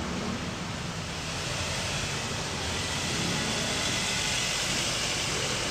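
Steady traffic noise: car engine and tyre noise from the street, growing slightly louder about two seconds in.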